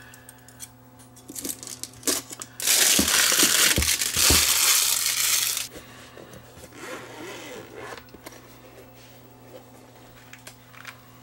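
Plastic shrink wrap being cut with scissors and torn and crinkled off a zippered hard-shell case. A few light clicks first, then a loud crackle of wrap for about three seconds in the middle, then quieter rustling and handling.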